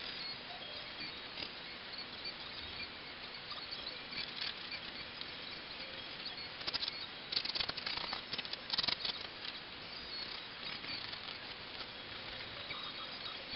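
Pencil scratching across a sheet of drawing paper in short strokes over a steady hiss, with a flurry of louder, quicker strokes a little past the middle.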